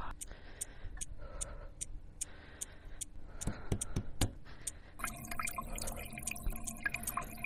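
Water drops dripping and plopping over a regular high ticking, about three ticks a second. About five seconds in, a dense patter of drips sets in over steady low tones.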